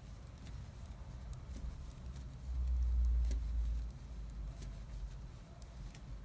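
Knitting needles clicking faintly as knit stitches are worked, over a low rumble that swells for about a second and a half in the middle.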